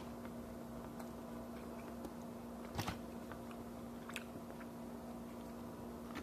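Eating sounds: a few short, crisp bites and chews, the loudest a quick double crunch about three seconds in, over a steady low hum.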